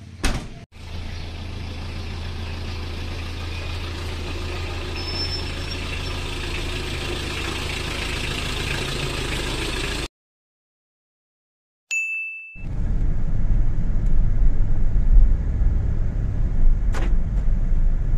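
Motor vehicle running: a steady engine hum with a low drone, then after a sudden cut and a short beep, a louder low rumble of the vehicle on the move.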